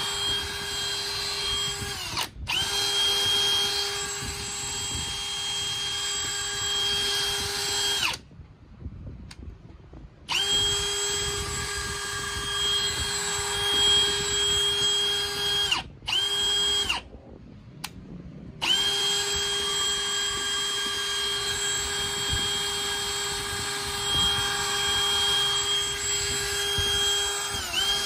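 AEG 18V brushless cordless drill running free with an empty chuck: a steady, high motor whine at one constant speed. The trigger is let go several times, with a brief break about two seconds in, longer stops of about two seconds near eight and seventeen seconds in, and short dips near sixteen seconds and near the end. Each time the motor winds down and spins back up to the same pitch.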